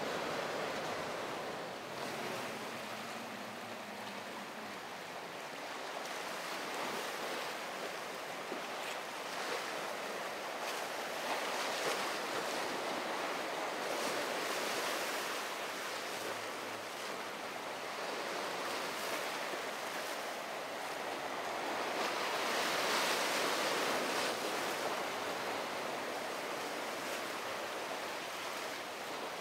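Ocean waves breaking and surf washing, with wind gusting on the microphone; the wash swells and eases, loudest about three quarters of the way through.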